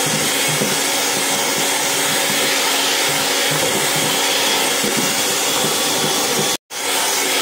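Electric hand mixer running steadily, its beaters whisking egg yolk and sugar batter in a plastic bowl as oil is added. The sound cuts out for a moment near the end.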